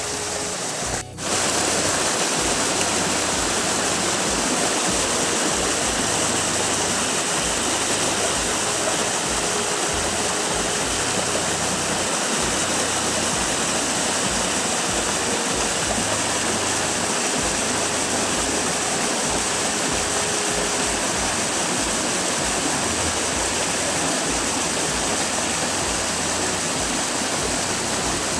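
Creek water rushing steadily over rocks in a small rocky stream, with a brief dropout about a second in.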